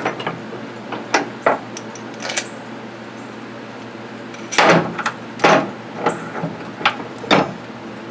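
A string of sharp knocks and clacks from hard objects being handled, irregular and spread out, with the loudest pair a little past halfway and another near the end, over a steady low hum.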